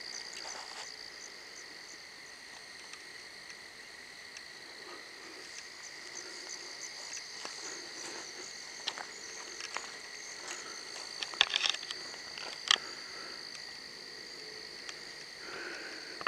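Night chorus of frogs and insects: a steady, continuous trilling that does not let up, with a few sharp clicks about three-quarters of the way through.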